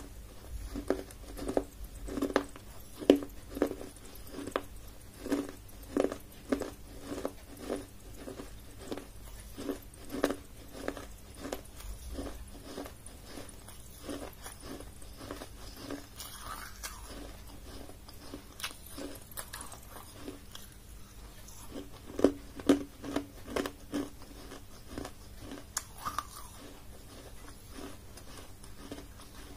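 Close-miked chewing and crunching of pieces of baked clay: sharp, crisp crunches come about twice a second, thin out in the middle and pick up again near the end.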